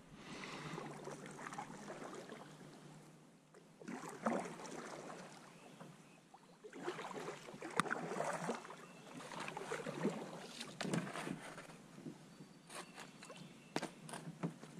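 Kayak paddle strokes splashing and dripping, in several bouts of a second or two with short pauses between, then a few sharp knocks near the end.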